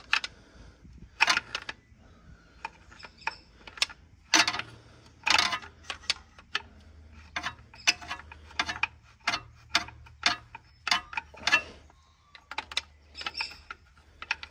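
Metal-on-metal clicks and short scrapes as a pry bar works the edge of an old main bearing shell on a Mitsubishi Fuso 6D14 engine's crankshaft to roll it out. The clicks come irregularly, a few louder ones about four to five seconds in.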